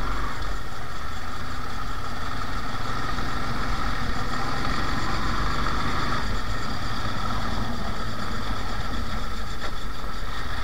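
Motorcycle engine running at a steady, even pace while riding along a rough dirt track, heard from the rider's seat with tyre and wind noise.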